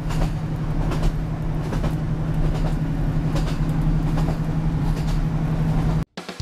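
Inside a moving train carriage: a steady low drone and rumble of the train running, with light rattles, cutting off suddenly near the end.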